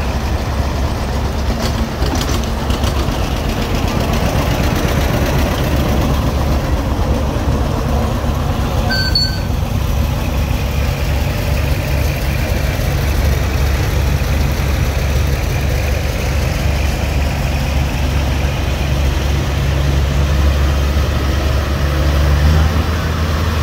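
Antique farm tractor engines running at low speed: a steady low rumble that grows a little louder near the end.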